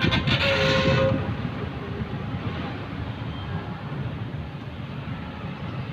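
Excavator's diesel engine running as it digs into a sand pile: a steady low rumble, louder for the first second or so.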